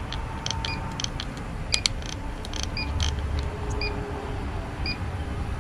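Trigger spray bottle squirting leak-check bubble solution onto the coil's copper return bends in several short clicks, while an electronic refrigerant leak detector beeps about once a second. A steady low rumble runs underneath.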